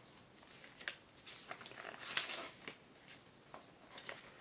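Faint rustling and flapping of paper as the pages of an instruction booklet are flipped through by hand: a string of short, irregular rustles, the loudest about two seconds in.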